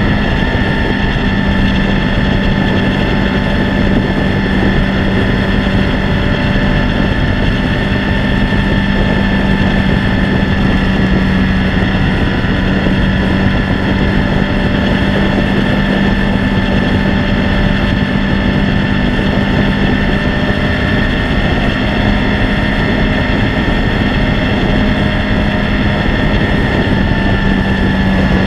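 Suzuki Hayabusa GSX1300R's inline-four engine running at a steady highway cruise, holding one engine speed with no revving, with wind rushing over the microphone.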